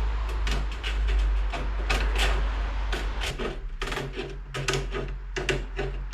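Tin snips cutting metal mesh: an irregular series of snips and clicks, over a steady low hum.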